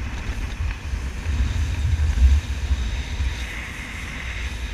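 Wind buffeting the microphone on an open boat at sea, an uneven low rumble that gusts strongest about two seconds in, over a steady rush of water.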